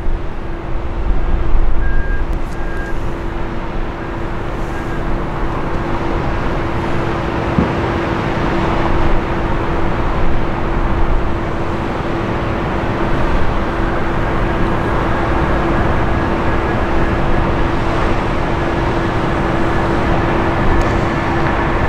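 Airbus A319-132's IAE V2500 jet engines running at takeoff power as the airliner rolls down the runway: a steady, even noise with a constant hum.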